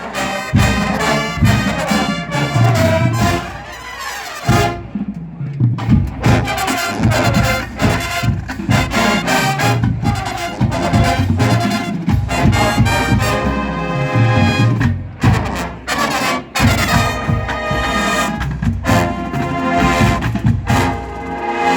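College marching band playing, with trumpets and trombones carrying the music over drums. There are short breaks between phrases.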